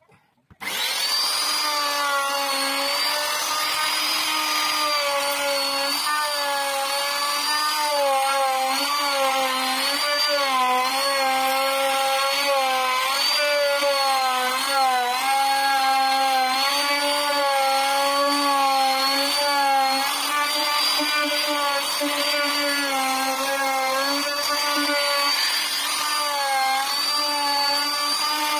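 Router spindle switching on about half a second in, then cutting into wood: a steady motor whine whose pitch wavers and dips as the bit works through the carving.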